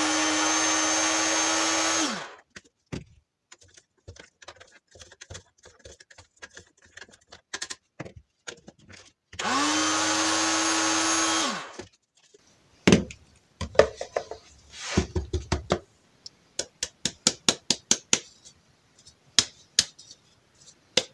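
Small electric blender mixing a dry flour-and-spice pellet mix, in two pulses of a few seconds each: its motor hum rises as it starts and falls away as it stops. Then a run of clicks and knocks as the jar is handled and the mix is tipped out.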